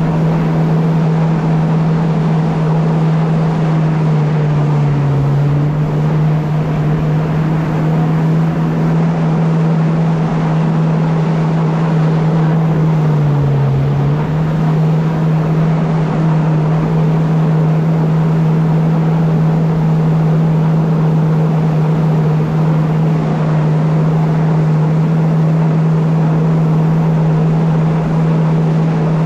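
A vehicle engine droning at a steady speed under a constant rushing noise. Its pitch dips briefly twice and comes straight back.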